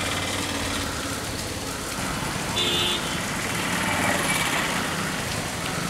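Heavy rain pouring down in a steady hiss, with a brief high tone about two and a half seconds in.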